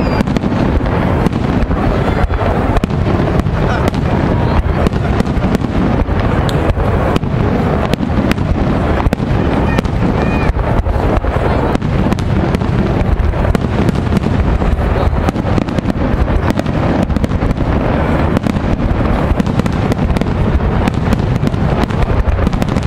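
Aerial firework shells bursting in a dense, unbroken barrage: many bangs packed close together, with a heavy low rumble between them.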